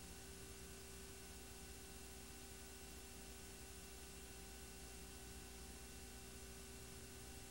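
Near silence: a faint steady hiss and hum, the background noise of a silent film transfer with no recorded sound.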